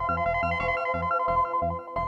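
Fast electronic rave music in the makina style: a heavy kick drum about three beats a second under a quick, high synth lead melody.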